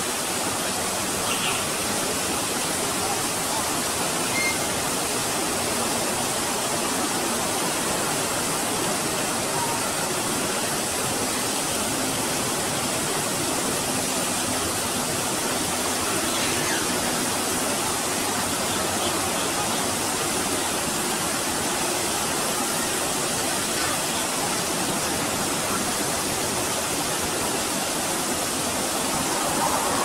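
Waterfall pouring into a pool, a steady rushing noise.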